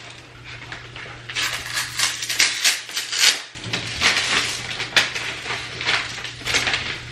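Peel-and-stick vinyl wallpaper crinkling and rasping in irregular strokes as a strip is handled, pulled and smoothed onto the wall, over a steady low hum.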